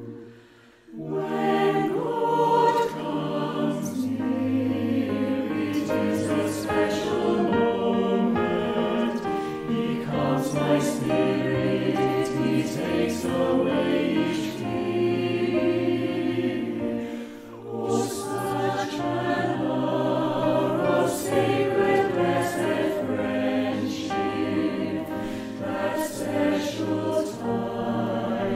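Mixed choir of men's and women's voices singing a slow Christian song, with piano accompaniment. The music briefly falls away just after the start before the choir comes in, and dips once more about two-thirds of the way through.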